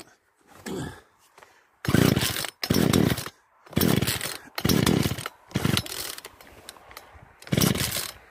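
Poulan 3314 33cc two-stroke chainsaw being pull-started again and again, about six quick pulls on the recoil starter that crank the engine without it catching into a run. The saw pulls hard, with a lot of compression.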